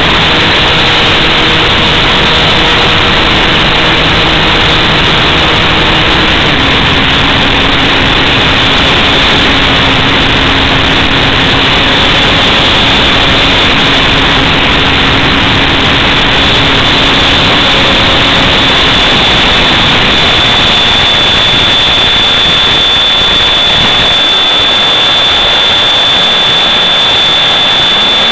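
Onboard sound of a small FPV radio-controlled plane in flight: a loud, steady rush of motor, propeller and wind noise. Faint motor tones step down in pitch about six seconds in and fade out around twenty seconds, and a thin high steady tone comes in after that.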